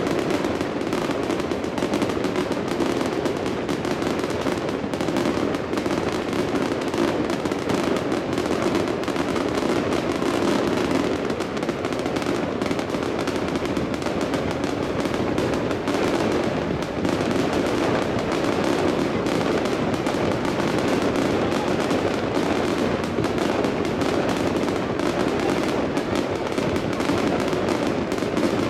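Aerial fireworks bursting in a dense, continuous barrage: rapid overlapping pops and crackles with no let-up.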